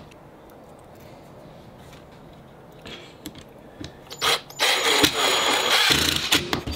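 Ryobi cordless driver sinking a 1-inch screw with a washer into a wooden 2x4 base. It starts about four seconds in and runs for about two seconds, after a quiet stretch with a few light clicks.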